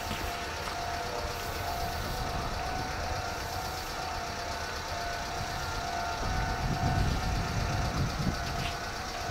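A vehicle's steady running hum with a constant whine, and a low rumble that swells about six seconds in and eases off near the end.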